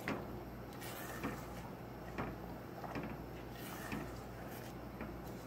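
Silicone spatula stirring a thick milk-and-sugar mixture in a stainless steel saucepan, soft scrapes against the pan about once a second, over a low steady hum.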